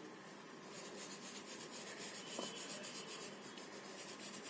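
Faint, rapid back-and-forth scribbling of a colouring tool on paper, filling in a picture in quick, even strokes that start about a second in.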